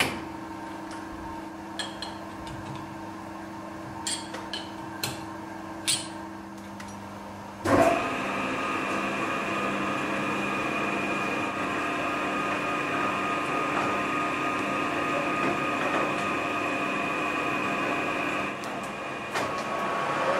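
A rotary phase converter hums steadily while steel tool holders click and clink into a lathe's quick-change toolpost. About eight seconds in, a Colchester Master 2500 lathe starts with a loud surge and runs steadily with a high whine. The sound dips briefly near the end, then picks up again.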